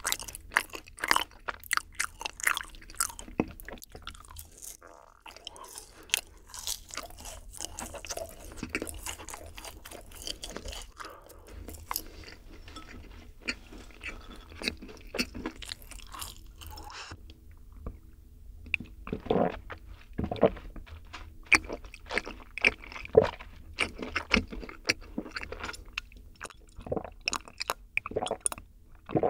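Close-miked eating sounds: biting into and chewing syrup-soaked yakgwa honey cookies, with a dense run of sticky, crunchy mouth clicks. After about seventeen seconds the sounds thin out to separate sips and swallows of milk from a glass mug.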